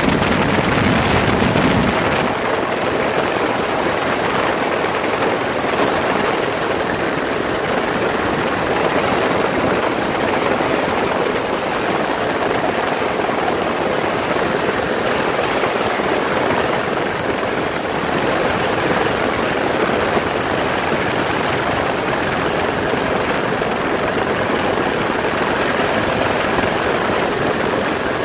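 Helicopter rotor and turbine noise heard from on board: a loud, steady drone with a thin high whine on top.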